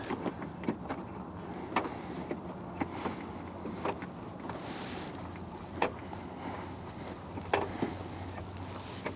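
Scattered clicks and light knocks from hands and tools working on a Jeep tail light assembly, over a steady low hum.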